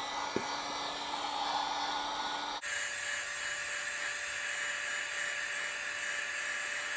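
Handheld electric heat gun blowing steadily to heat and soften a racquet's plastic bumper guard and grommet strip. About two and a half seconds in the sound cuts for an instant and resumes with a higher-pitched whine.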